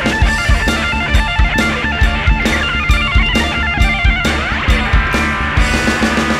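Live rock band playing an instrumental passage: electric guitars and bass over a steady drum-kit beat.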